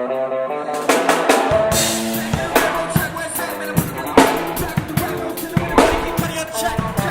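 Rock music on guitar and drum kit: a guitar riff at the start, with kick and snare drum hits coming in about a second in and carrying on under the guitar.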